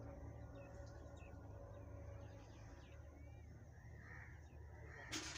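Faint open-air ambience: scattered bird chirps and calls over a low, steady rumble, with one short, sharp noisy burst near the end.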